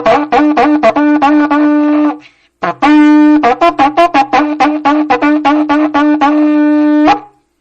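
Berrante, the Brazilian cattle-drover's ox horn, blown in a loud call of fast repeated pulses, about five a second, over a steady low tone. It breaks off briefly a little over two seconds in, then resumes and stops near the end.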